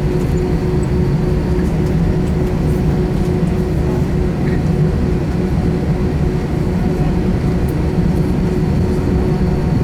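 Airbus A320 cabin noise on the ground before takeoff: the jet engines and airframe give a steady drone with a low rumble and a steady hum tone, holding even throughout with no spool-up.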